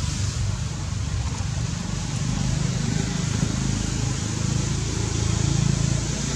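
Steady outdoor background noise: a continuous low rumble with an even hiss, and no distinct event.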